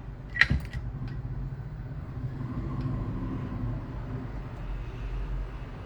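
Steady low hum of bench equipment, with a quick cluster of sharp clicks about half a second in and a couple of faint ticks later, as a small tool touches the phone motherboard to start cutting the glue around the NAND chip.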